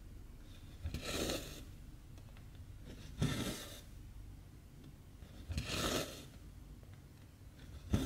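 Cotton embroidery thread drawn through stamped 14-count cross-stitch fabric: three short rasping swishes about two and a half seconds apart, each starting with a light tick as the needle goes through the cloth.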